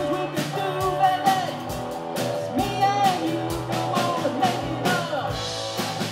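A live rock band playing: electric and acoustic guitars over a drum kit keeping a steady beat.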